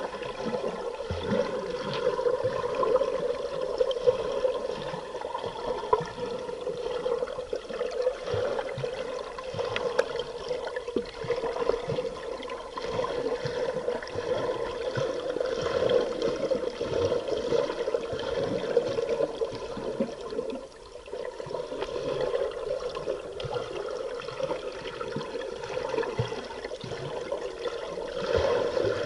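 Underwater sound picked up by a submerged camera: a steady rush of water with irregular bubbling and gurgling, dipping briefly about three quarters of the way through.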